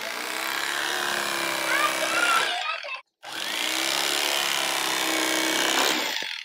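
Vintage Black & Decker electric fillet knife running in two bursts of about three seconds each, with a short stop about three seconds in, as its reciprocating blades cut a crappie fillet free of the skin. Its motor hum stays steady, with a wavering higher tone partway through the first burst.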